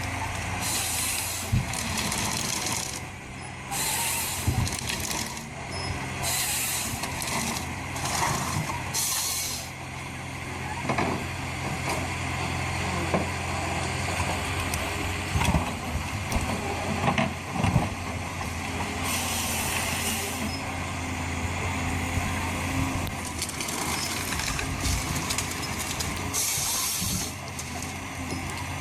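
Forestry harvester's diesel engine running steadily, with repeated short hissing bursts from its hydraulics and scattered sharp cracks and knocks as it works timber.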